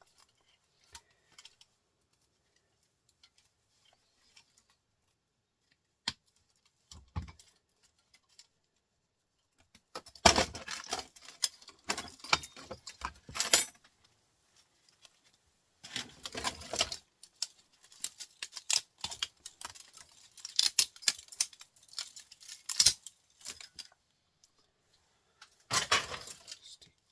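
Clinking and clattering of scrap wire and small metal parts being handled and sorted by hand. There are a few faint clicks at first, then busy bursts of rattling from about ten seconds in.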